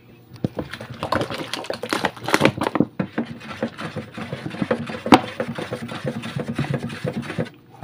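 Wooden spoon stirring a foamy soap-and-water mixture fast in a plastic basin, sloshing, with rapid clicks and knocks as it hits the basin. It stops abruptly near the end.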